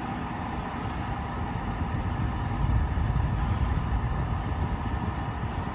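Portable air conditioner running, a steady low hum and rush of air, while it waits for its slow-starting compressor to kick on. A faint short high beep sounds about once a second.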